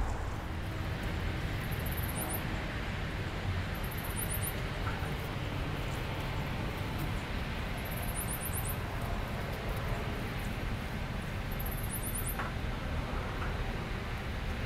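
Steady outdoor background noise with a low rumble. Short, very high trills come a few times, about two, four, eight and twelve seconds in.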